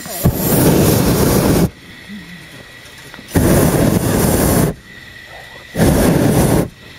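Hot-air balloon's propane burner firing in three loud blasts, each starting and cutting off abruptly. The first is about a second and a half long, the second just over a second, the last under a second. Faint dog barking comes in the gaps.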